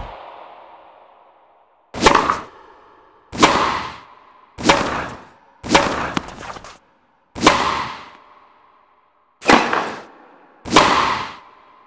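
Tennis ball struck with a racket in a rally: seven sharp, echoing whacks, each ringing out for about a second, spaced one to two seconds apart, over a faint steady tone.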